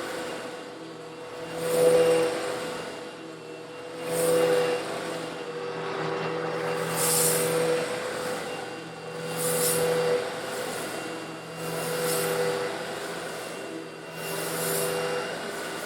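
Old Eureka vacuum cleaner running steadily as it sucks up small coarse stone granules. The grit rattles through it in surges about every two and a half seconds.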